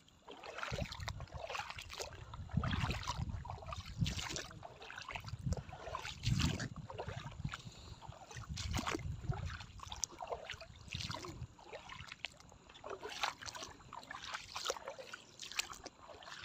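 Feet wading through shallow seawater, with irregular splashes and water trickling. A low rumble comes and goes and dies away about eleven seconds in.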